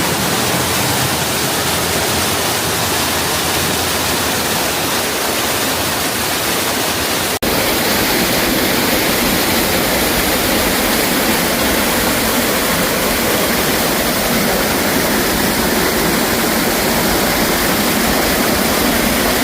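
Waterfall close by, a loud, steady rush of falling water, with a momentary break about seven seconds in.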